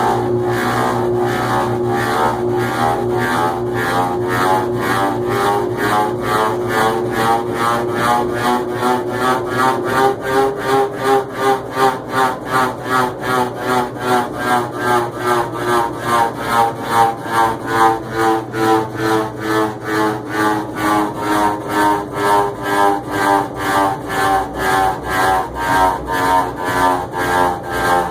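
GE washing machine running, a steady motor hum with a rhythmic rubbing sound about twice a second that grows stronger about ten seconds in. It is trying to spin, and the owner doubts it will manage the spin cycle.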